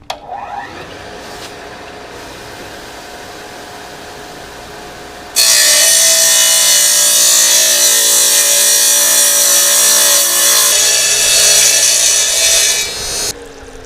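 Electric tile saw starting and running, then its blade cutting through a piece of ledgestone from about five seconds in: a loud, steady grinding hiss over the motor hum for about eight seconds that stops shortly before the end as the cut finishes.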